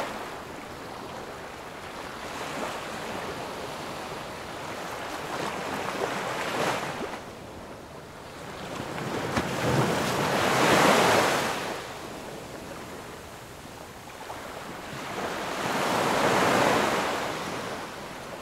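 Small waves washing up onto a sandy beach, the surf swelling and falling back in slow surges about every five seconds, loudest about eleven seconds in.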